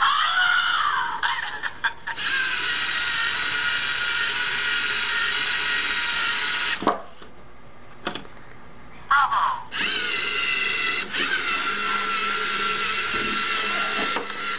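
LEGO Mindstorms EV3 robot's electric drive motors whining as it drives: a high, steady whine whose pitch slides as the robot starts moving. The whine stops for about three seconds a little past the middle, then starts again and runs steadily.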